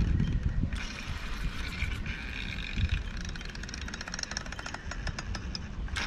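Spinning reel ticking rapidly as line is worked under tension on a bent rod, the ticks densest from about halfway in until shortly before the end, over a low rumble.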